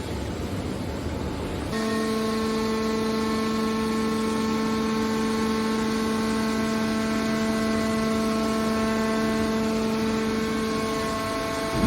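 Hydraulic metal baler running: a rumbling machine noise, then about two seconds in a steady, many-pitched whine comes in sharply and holds, the sound of the baler's hydraulic power unit working.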